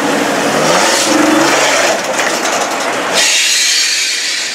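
Off-road race SUV's engine revving as it drives up the finish-line podium ramp, its pitch rising and falling in the first couple of seconds. About three seconds in, the engine sound gives way abruptly to a steady hiss.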